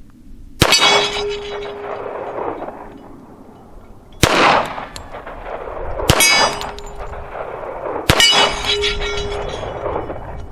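Four pistol shots from a Hi-Point .45 ACP handgun at a steel plate about 20 yards off. Three of them are followed by the plate's ringing clang as it is hit; the second shot, about four seconds in, misses and brings no ring.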